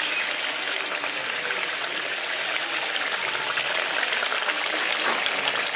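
Thin coconut-and-yogurt gravy boiling in a kadai, a steady, dense crackling of bursting bubbles, as fried katla fish pieces are laid into it.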